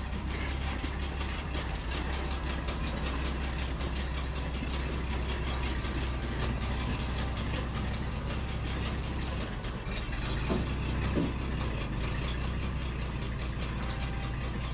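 An engine running steadily at idle, with a short louder sound about eleven seconds in.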